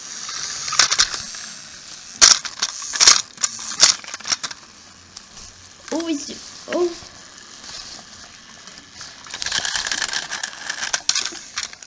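Handling noise of small plastic toy trains being moved by hand: rustling, crackling and sharp clicks, with two short voice-like sounds about halfway through.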